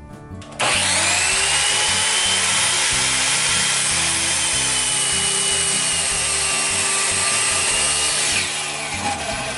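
Power tool cutting wood: it starts abruptly about half a second in, runs steadily under load, then winds down near the end.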